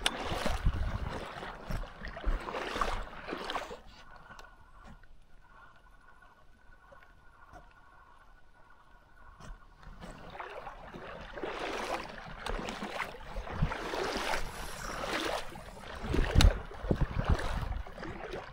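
Water sloshing and swishing in uneven strokes, quieter for several seconds in the middle, then sloshing again.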